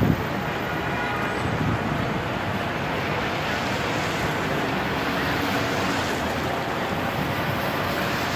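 Dense city street traffic: a steady wash of engines and tyres, with a low rumble swelling briefly about two seconds in.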